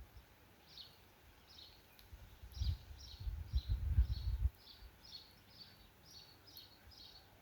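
A small animal's short, high-pitched chirping calls, repeated about two a second, starting under a second in. A low rumble comes and goes midway and is briefly louder than the calls.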